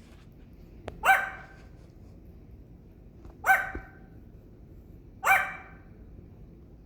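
Three short barks about two seconds apart, each a sharp call that falls slightly in pitch.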